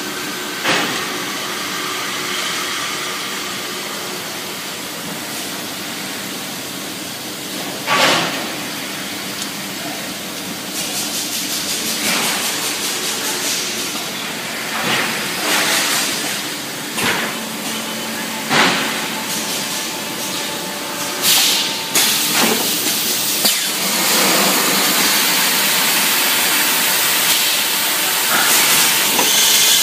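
EPP foam moulding machine running: a steady machine hum and hiss broken by a string of short, loud hisses of venting steam, then a continuous louder hiss over the last several seconds.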